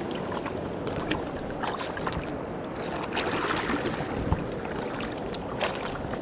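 River water running over and between rocks in the shallows, a steady rush, with small splashes and clicks as a hand works in the water. There is a dull knock a little past four seconds in.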